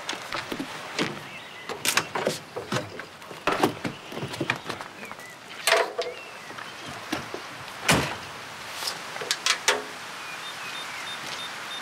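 Irregular knocks and clunks from men handling a truck with its cab tilted forward and the cab door open. The loudest knocks come about six and eight seconds in, with a quick run of them near ten seconds.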